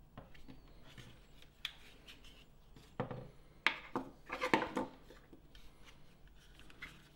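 Opened plastic housing of a Renault Laguna II accelerator pedal handled on a wooden desk: soft scattered clicks and rubbing, with a burst of louder plastic knocks and rattles about three to five seconds in.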